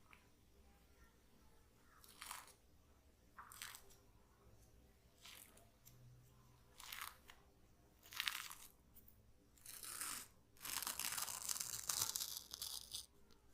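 Charcoal peel-off mask being peeled off the skin: about six short tearing pulls a second or two apart, then a longer continuous peel near the end.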